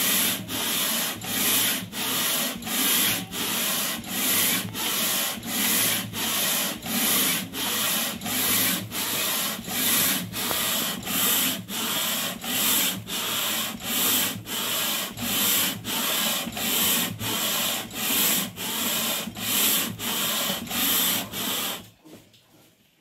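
Aluminium 2TR cylinder head being rubbed back and forth by hand on 60-grit sandpaper over a flat glass plate, lapping the gasket face flat. It makes an even, rhythmic rasp of about four strokes every three seconds, which stops about 22 seconds in.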